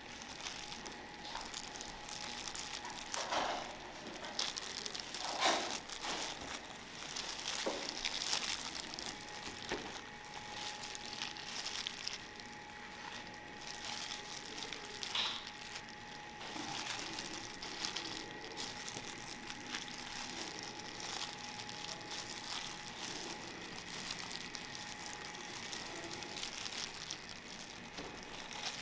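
Plastic crinkling and rustling from a plastic sushi tray being handled with disposable plastic gloves, irregular and busiest in the first ten seconds or so. A faint steady high hum runs underneath.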